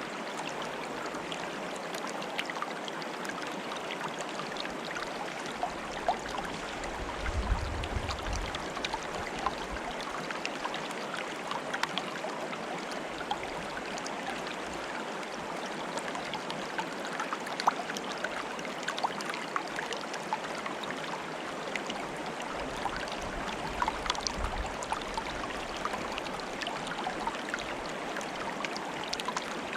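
Stream water bubbling steadily, dotted with many small plinks and splashes. A brief low rumble comes twice, about a quarter of the way in and again past the middle.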